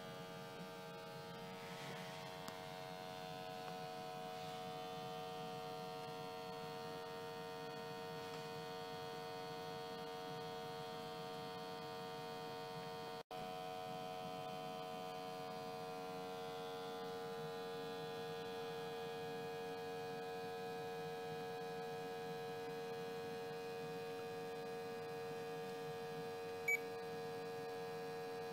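Vacuum pump of a Testo 330-2 flue-gas analyser running with a steady hum as it draws flue gas. The sound briefly cuts out about halfway, and a single short beep comes near the end.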